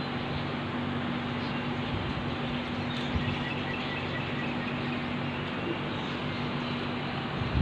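A few faint bird chirps about three to four seconds in, over steady outdoor background noise with a constant low hum.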